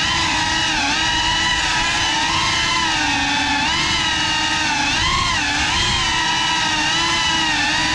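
FPV quadcopter's brushless motors and propellers whining close up, the pitch dipping and rising together several times as the throttle changes, over a steady rushing noise.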